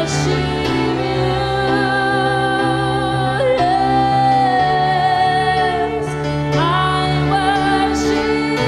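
Slow worship music: long held notes, some sliding in pitch, over a steady low sustained chord.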